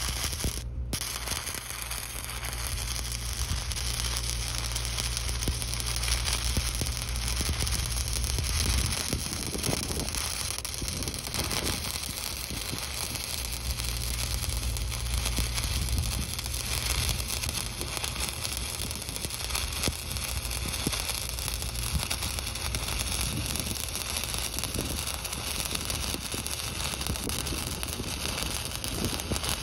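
Stick-welding arc crackling and sizzling steadily as a welding rod burns against steel pipe, with a brief gap just under a second in.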